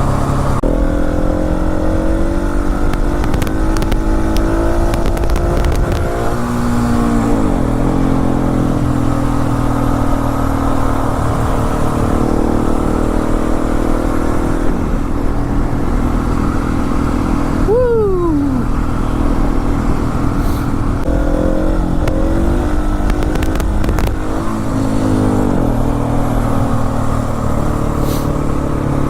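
Motorcycle engine running under way, with rumbling wind and road noise. The engine pitch rises and falls with the throttle and drops sharply for a moment about eighteen seconds in.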